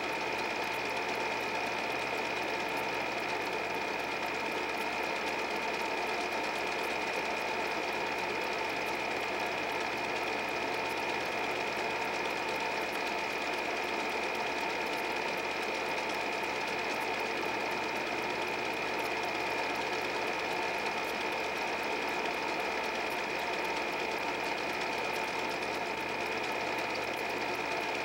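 8 mm film projector running: a steady mechanical whir with fast, even clatter and a constant high whine.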